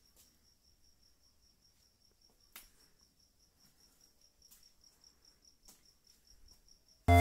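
Faint, steady chirping of a cricket, a high pulsing note about four times a second, with a few soft clicks. Loud music starts right at the end.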